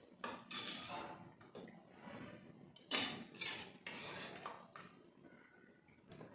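Kitchen pots and utensils clattering as they are handled, in a few separate bursts.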